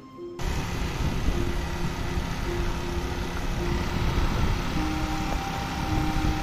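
Motorbike ride: wind rushing over the microphone together with the engine running, starting suddenly about half a second in. A simple melody of background music plays over it.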